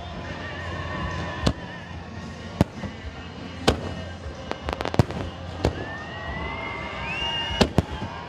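Fireworks display: a dozen or so sharp bangs of aerial shells bursting, with a quick rattle of crackling reports about five seconds in and two close bangs near the end. A rising whistle runs between about six and seven seconds.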